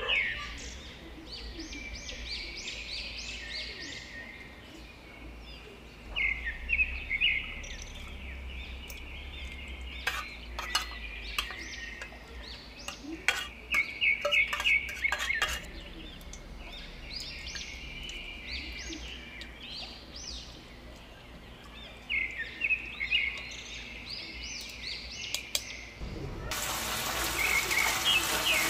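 A small bird chirps in repeated bursts of quick high notes, with a few light clicks and taps of a spoon on the tuna can and mesh strainer. Near the end it switches abruptly to the steady sizzle of tuna frying in its oil in a pan.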